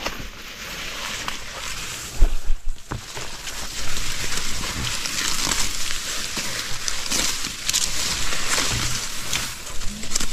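Grass and corn leaves rustling as handfuls of grass are grabbed and cut near the ground, with several sharp snaps of stems, the loudest about two to three seconds in.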